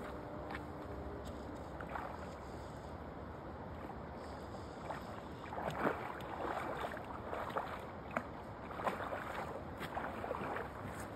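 River water running steadily past the bank. Over the second half come irregular short splashes and rustles.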